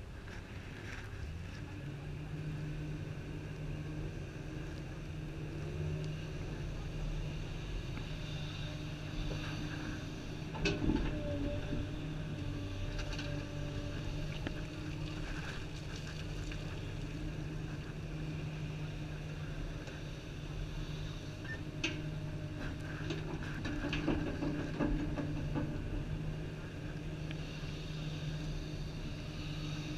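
Komatsu 350 excavator's diesel engine running steadily, heard inside the cab while the machine digs. A few sharp knocks stand out, the loudest about eleven seconds in and more a little past twenty seconds.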